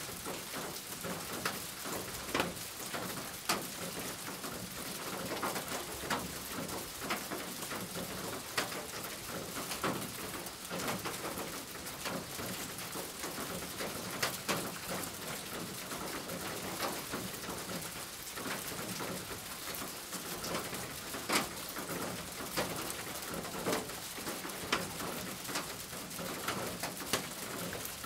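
Graphite pencil scratching on paper in short, irregular strokes as lines are sketched in.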